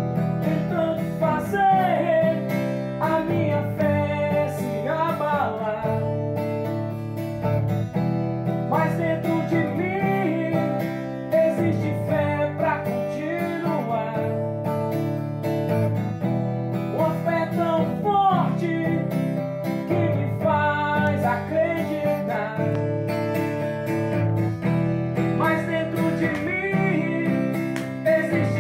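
Steel-string acoustic guitar strummed in a steady rhythm, with a man's voice singing a melody over it at intervals.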